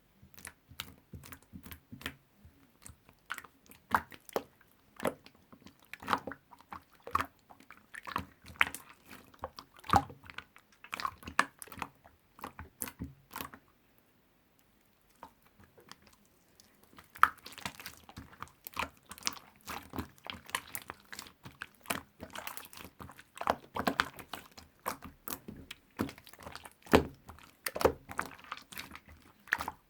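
Slime being squished and worked by hand, making dense crackling clicks and pops, with a pause of about a second and a half midway.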